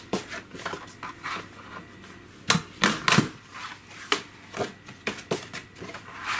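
Disc-binding hole punch cutting through two pieces of thin cardboard: a string of clicks and clunks from the punch and the sheets being handled, with the loudest few clunks a bit past halfway.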